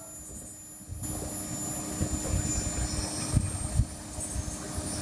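Heavy road-construction machinery running: a rough, uneven low diesel rumble with a steady hum, starting about a second in.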